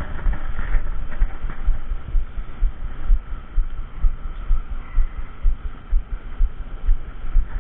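Dull low thumps, about one and a half a second and clearest in the second half, over a low rumble: handling and body-movement noise on a body-worn action camera.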